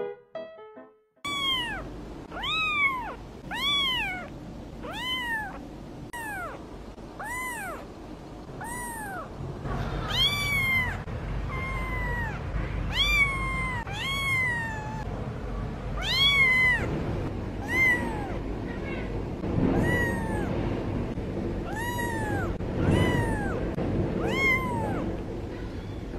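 Kitten meowing over and over, about one high, arching meow a second. A brief bit of piano music comes first.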